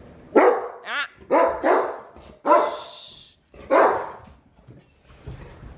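Dog barking about six times in quick, uneven succession, one of them a higher yip.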